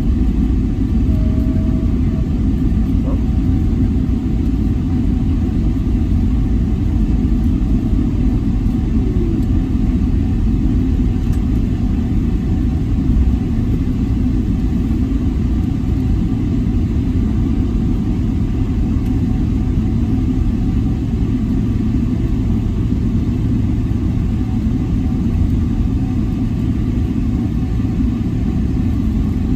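Steady low rumble of an airliner's cabin during landing rollout, as engine and runway noise come through the fuselage while the jet slows and turns off toward the taxiway.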